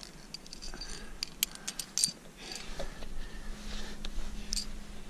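Climbing hardware clicking and clinking: carabiners and a quickdraw on protection placed in a granite crack, with a cluster of sharp clicks about one to two seconds in, then softer rustling.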